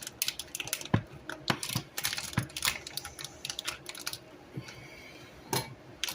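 Rapid, irregular light clicks and taps of kitchen food preparation on a counter, easing off for a moment about four seconds in before one more sharp tap.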